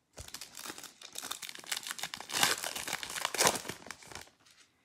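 Foil wrapper of a 2020 Panini Select football card pack being torn open and crinkled, a run of crackling rustles loudest about two and a half and three and a half seconds in.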